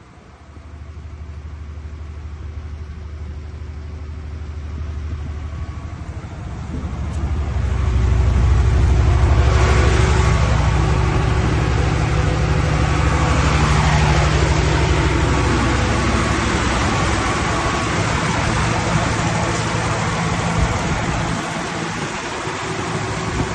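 Perkins diesel engine of an 800 kVA FG Wilson generator set running with a steady low drone. It grows much louder about seven to nine seconds in and then holds steady.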